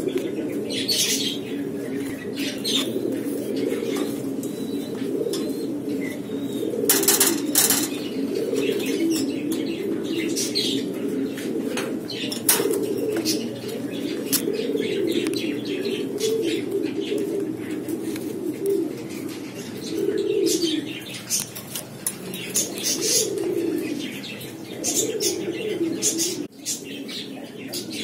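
Domestic pigeons cooing steadily, several at once, with repeated short flurries of wing flapping, the loudest about seven seconds in and again about twelve seconds in.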